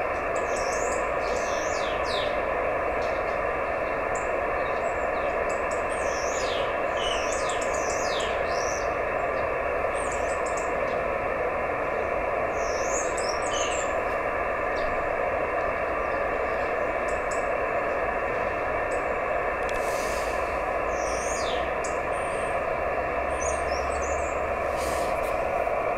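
Hiss from an Icom IC-910H receiver on 432 MHz SSB: a steady band of noise that stops sharply above about 2.7 kHz, with the weak JT65 moonbounce signal from DL7APV buried in it. The hiss cuts off at the very end, at the minute mark when the station goes over to transmit. Small birds chirp now and then above it.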